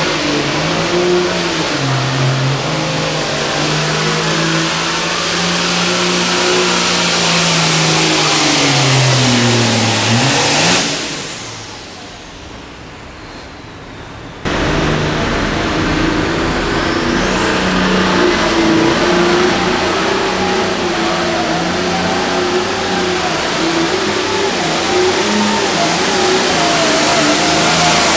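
Diesel pulling-tractor engine at full power, its pitch wavering, then falling and dying away about ten seconds in as the run ends. After a sudden cut, another pulling tractor's engine runs hard at high revs, with a high whistle rising a few seconds later and then holding.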